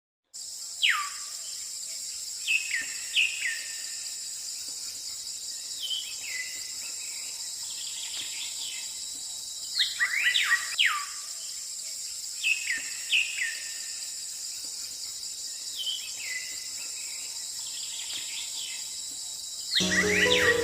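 Birds calling over a steady insect chorus. The calls are short whistles that drop sharply in pitch, some coming in quick runs of two or three. Music starts just before the end.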